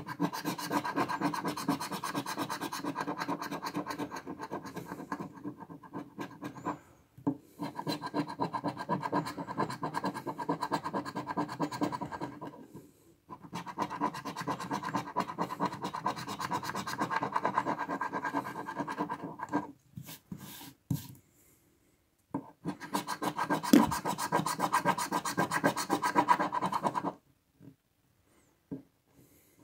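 A large metal coin scraping the coating off a paper scratch-off lottery ticket in rapid back-and-forth strokes. The scraping comes in four long spells, broken by short pauses about 7 and 13 seconds in and a longer one around 20 seconds.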